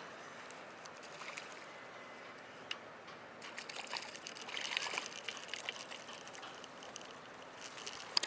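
Faint splashing and trickling of water as a small hooked mullet is reeled up to the surface on a spinning reel, with scattered small clicks; the splashing is busiest about four to five seconds in.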